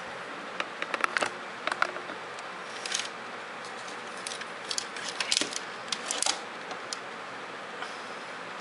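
Irregular light clicks and rattles of the hard plastic parts of a Robots in Disguise Optimus Prime toy as it is handled and its pieces moved, over a steady hiss.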